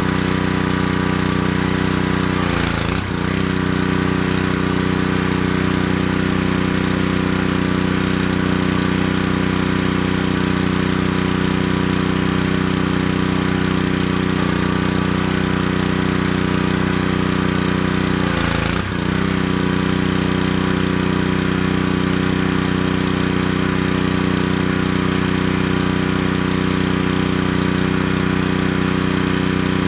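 Honda-engined Ryobi 3000 PSI gas pressure washer running at a steady speed just after its first start, with two brief dips, about three seconds in and again near the twenty-second mark.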